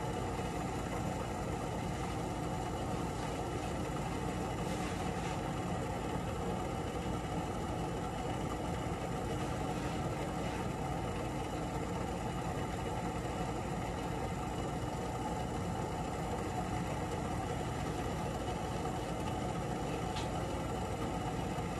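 Steady mechanical hum of a running household appliance, level and unchanging, with a few faint clicks.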